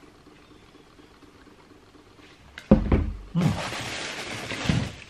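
Trainer box and its packaging being handled: a sharp knock about two and a half seconds in, then about a second and a half of rustling paper packaging.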